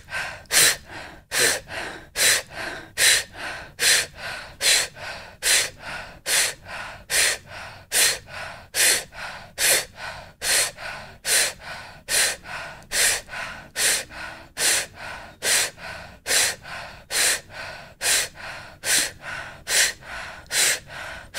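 A woman's rapid breath-of-fire breathing: a sharp, explosive inhale about every 0.8 seconds, each followed by a softer exhale that just falls out, in an even rhythm.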